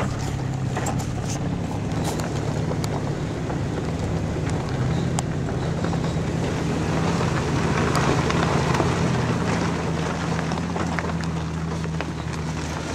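Toyota FJ Cruiser's V6 engine droning steadily while it drives slowly over a rocky dirt trail, heard from inside the cab, with tyre and gravel noise and scattered small knocks and rattles.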